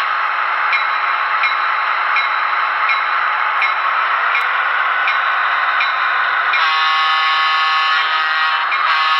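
Sound decoder of an HO-scale Broadway Limited EMD F3 model locomotive playing diesel running sound through its small speaker, with a light click repeating a little more than once a second. About six and a half seconds in, the locomotive's horn sounds a long blast of about two seconds, breaks off briefly and sounds again near the end.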